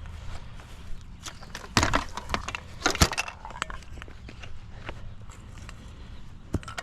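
Clattering and knocks of gear being handled and moved, with footsteps, loudest around two and three seconds in, over a low steady rumble.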